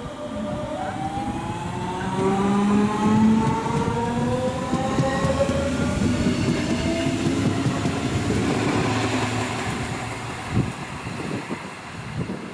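DB class 425 electric multiple unit accelerating past. The whine of its electric traction drive climbs steadily in pitch over the rumble of wheels on rail. It is loudest as the train passes close by, then fades as it draws away, with a few knocks from the wheels near the end.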